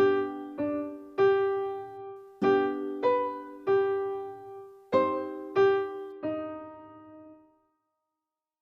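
A short single-line piano melody of nine notes, each struck and left to decay, the last one ringing out and fading. It is an ear-training test statement, to be judged as major or minor tonality.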